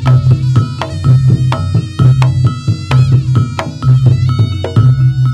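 Instrumental break of a Javanese dance band played loud through a sound system: a quick hand-drum pattern over a heavy pulsing bass line, with ringing melodic notes.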